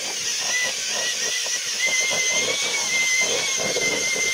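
Cordless drill-driver spinning a paddle mixer through a bucket of wet finishing putty. The motor runs with a steady whine over the churning of the paddle in the mix.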